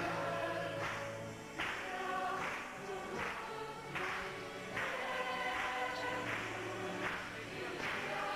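A group of voices singing a hymn-like religious song together, with a steady beat.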